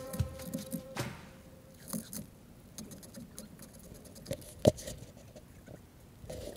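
Wet concrete tipped from a bucket into a column footing hole and worked with a wooden board: scattered soft knocks and patters, with one sharp knock near five seconds in. Background music stops about a second in.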